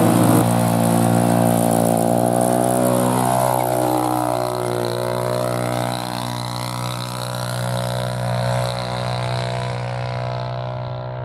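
Small single-cylinder engine of a Polaris youth ATV running at a steady pitch, a constant drone with many even overtones. Near the end the sound grows duller and quieter.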